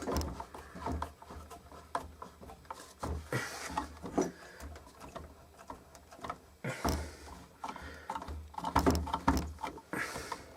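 Clamps being tightened on wooden boards that press wet leather into a mould, heard as scattered knocks and scraping handling noises, with louder ones about three and a half, seven and nine seconds in.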